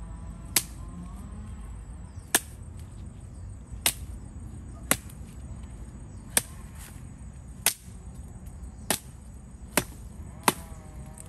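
Firewood being chopped with a blade: nine sharp, separate strikes at an uneven pace, about one every second or second and a half.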